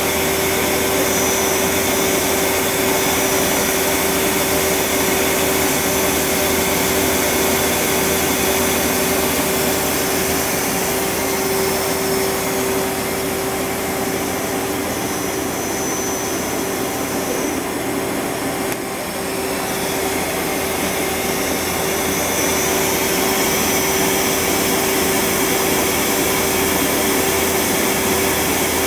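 Hardinge Quest 8/51 CNC turning center running under power: a steady whine and rush with one strong constant tone. The level dips slightly about two-thirds of the way through, then recovers.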